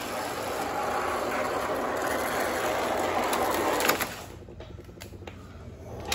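O gauge model diesel locomotive running on three-rail track, a steady motor and wheel whirr that stops about four seconds in. A few light clicks follow.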